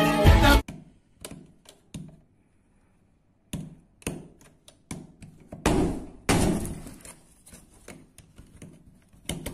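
Scattered knocks and taps against a wall, then two heavier thuds about six seconds in as an arm breaks through the plasterboard wall, and a few more knocks near the end.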